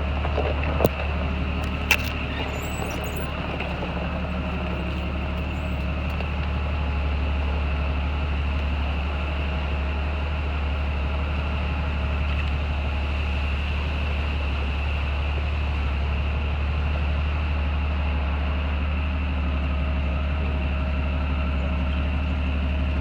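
A motor vehicle driving, with a steady engine and road drone, and two sharp clicks about one and two seconds in.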